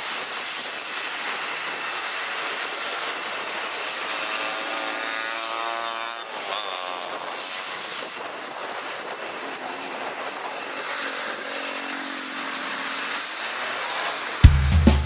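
Jet airliner engines running with a steady hiss and whine; about four to seven seconds in, an aircraft passes close and its sound sweeps down and back up in pitch. Drum-led music starts just before the end.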